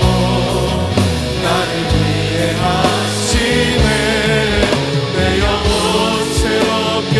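Contemporary worship band music: a full band with steady drum hits, sustained bass and guitars, with singing voices.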